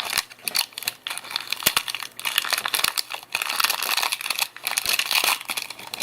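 Crinkling and rustling of trading cards and their pack wrapper being handled, with irregular small clicks and crackles, busiest through the middle.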